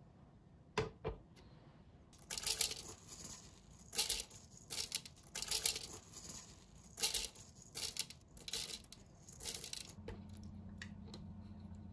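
Two light knocks as a plastic blender jug is set down. Soaked raw brown rice is then poured from a metal mesh strainer into the jug, the grains rattling and scraping in a series of bursts. A low steady hum comes in near the end.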